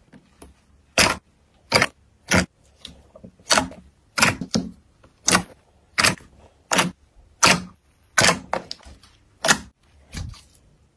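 Thick glossy slime pressed and stretched by hand, trapped air bursting out in an irregular series of sharp pops and crackles, about one or two a second.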